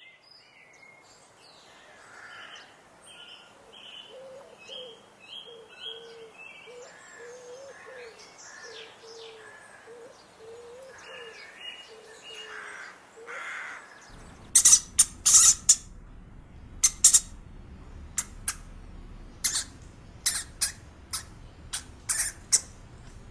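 Animal calls, bird-like: a series of short low calls repeated at an even pace with higher chirps above them, then a change to loud, sharp, high-pitched chirps or clicks in quick irregular groups about two-thirds of the way through.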